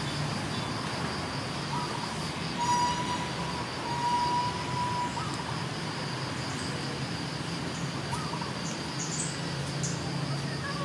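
Steady, high, pulsing insect trill over a low background hum, with a few short chirps and one held whistle-like note lasting about two seconds near the middle.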